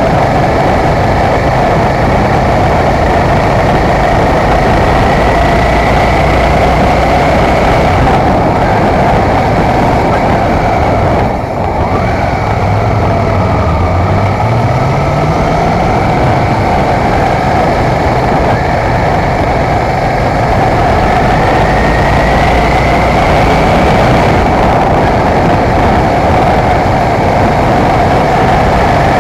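Motorcycle engine running under way, mixed with heavy wind rush over the microphone. About eleven seconds in the throttle closes briefly, then the engine note climbs as the bike accelerates.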